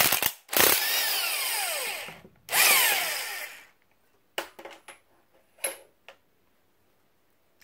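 Power tool with a socket spinning the forcing screw of a gear puller on a Model T Ford transmission gear, in three bursts. Its whine falls off as the motor coasts down after each burst. A few light metal clicks follow as the puller is handled.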